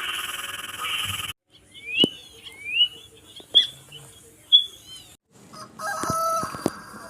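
A bird calling, about four short, sharp rising calls roughly a second apart. It is preceded by the abrupt end of another sound effect, and a different effect with steady tones and clicks begins near the end.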